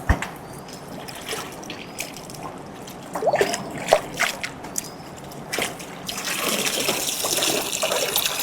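Water splashing and trickling as pieces of raw chicken are washed by hand, with a few short knocks and splashes, then a steadier run of pouring water for the last couple of seconds.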